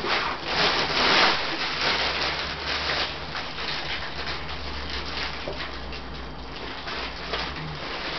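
Rhodesian Ridgeback puppies scuffling, their claws scrabbling and sliding on a wooden floor: a run of scraping noises, loudest in the first second or so.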